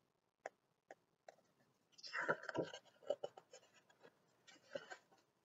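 Picture book's paper pages being handled and rustled: a few faint taps at first, then the loudest rustle about two seconds in, with softer brushes of paper after.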